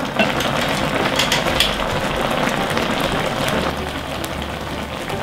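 Thick gochujang sauce for tteokbokki boiling hard at high heat in a pot: steady bubbling with scattered small pops.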